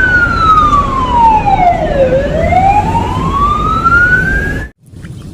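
Ambulance siren wailing over a low rumble: one slow sweep falling in pitch, then rising again, cut off suddenly near the end.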